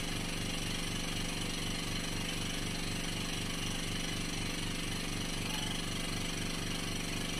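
Mini airbrush air compressor with a single-piston motor, mains-powered and rated at 23 litres a minute, running steadily with no hose attached. It gives a constant motor hum with a fast, even pulsing beat.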